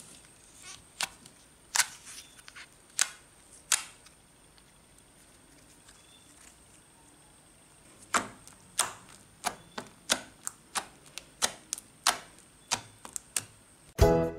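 A series of sharp clicks or taps: a few spaced ones at first, then a steady run of about one every 0.6 s in the second half. Music starts right at the end.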